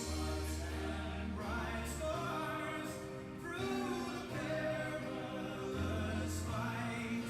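Background music: a singing voice or choir in an operatic style over long held bass notes.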